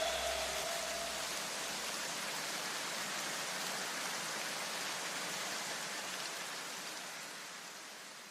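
Steady hiss of noise, like rain, left after electronic music cuts off, fading away near the end.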